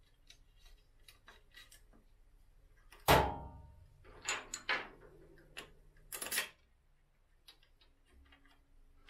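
Small metal clicks and clanks of bolts and a hand tool being handled while a motorcycle's front brake caliper is bolted back on. One sharp, ringing clank about three seconds in is the loudest, with a few shorter clattering knocks shortly after and again around six seconds.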